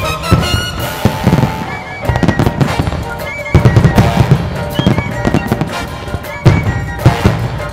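Aerial firework shells bursting in rapid volleys of sharp bangs, densest about halfway through, over the display's accompanying music.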